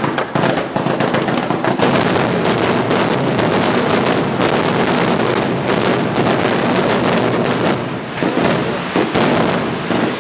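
Fireworks going off in a dense, continuous barrage: a rapid rush of overlapping bangs and crackles with no pauses between them, easing slightly about eight seconds in.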